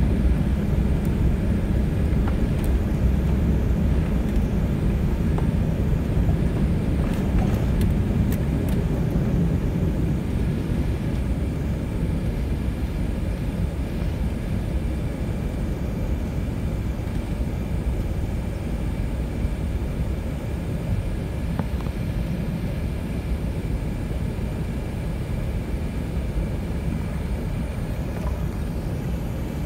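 Cabin noise of an Airbus A380 at takeoff thrust, its four Engine Alliance GP7200 turbofans giving a heavy, steady rumble with rushing air and a faint steady whine. It runs through the end of the takeoff run, liftoff and initial climb, easing a little after about ten seconds, with a few light clicks about eight seconds in.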